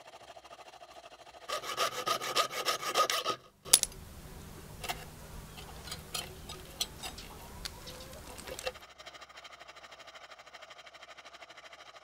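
Jeweller's saw cutting a spoon-lure blank out of thin metal sheet, with fast strokes of about five a second for a couple of seconds. A sharp click follows, then quieter scraping with scattered ticks, and near the end a faint quick sawing rhythm.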